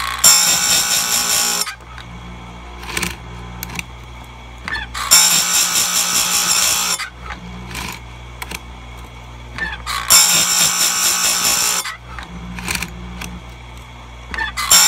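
Power Fist bench-mounted chainsaw chain grinder running with a steady motor hum, its grinding wheel brought down onto the chain's cutters in loud hissing grinds of about a second and a half, roughly every five seconds: three grinds and the start of a fourth near the end. Short clicks between grinds as the chain is moved on to the next cutter.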